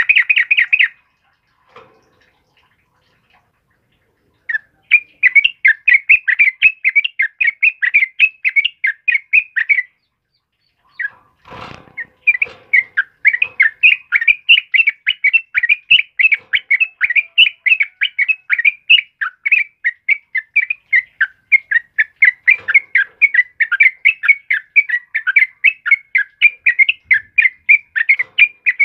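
Yellow-vented bulbul singing vigorously: long runs of rapid, evenly repeated short chattering notes, about five a second. The song breaks off briefly near the middle, where a short rustle sounds, and then runs on without pause.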